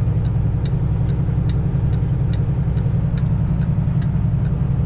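Semi truck's diesel engine running at low speed as the truck creeps along, heard from inside the cab: a steady low rumble, with a light regular ticking about two or three times a second.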